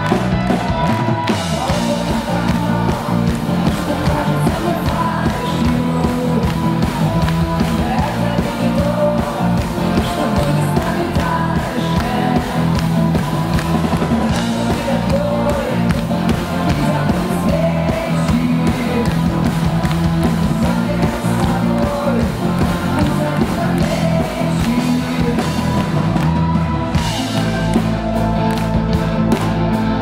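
Live rock band with a string section of violins and cello playing a song, with a steady beat. Near the end the band drops out for a moment, then comes back in full.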